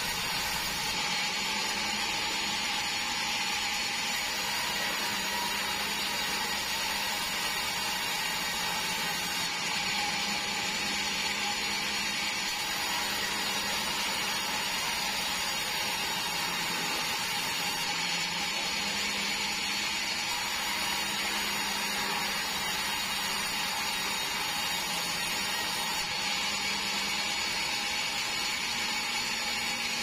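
Sawmill bandsaw running steadily while red meranti boards are fed through it, a continuous machine hum with a steady tone.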